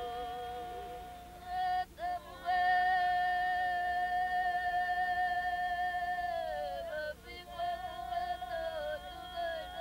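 A single voice singing long held notes: one note is held for about four seconds, then slides down in pitch, followed by shorter wavering notes.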